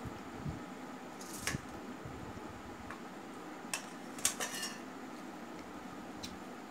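Fingers mixing rice and curry on a stainless steel plate, making a few brief scrapes and clinks against the metal.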